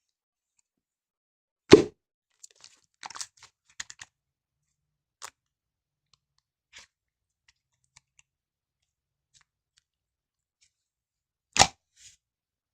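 Slime being played with by hand: a loud slap or squish about two seconds in and another near the end, with small crackles, pops and clicks from the slime in between.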